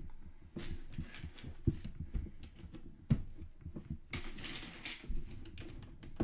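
Plastic Lego pieces clicking and clattering as they are handled and fitted together, with a few sharper clicks and a brief rustle about four seconds in.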